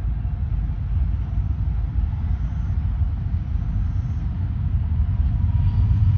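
Freight train of autorack cars rolling past, a steady low rumble of wheels on rail. The rumble grows louder near the end as a diesel locomotive in the train draws near.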